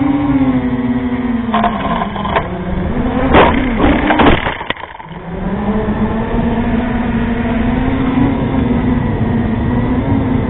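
FPV quadcopter's electric motors and propellers whining steadily, with a run of clicks a second and a half in and louder knocks a couple of seconds later as the drone bumps into the ground. The motor whine dips briefly just after the knocks, then comes back steady.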